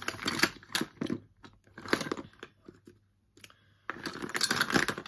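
Irregular clicks and clatter of small plastic makeup items being handled and rummaged through. They pause for about a second midway, then come thick again.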